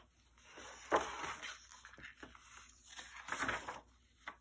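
Cover and pages of a paperback picture book being turned and pressed flat by hand: soft paper rustling and sliding, with a sharper rustle about a second in and another a little after three seconds in.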